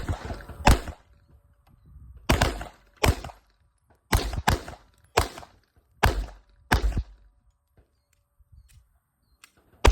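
9mm pistols, a Glock 19X and a Sig Sauer M17, firing single shots at uneven intervals: about nine shots in the first seven seconds, then a pause of nearly three seconds before another sharp shot right at the end.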